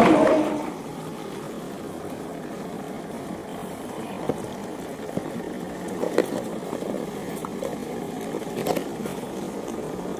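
Crowd noise fades out in the first half second. Then a motor vehicle's engine runs steadily and fairly quietly, with a few light knocks scattered through it.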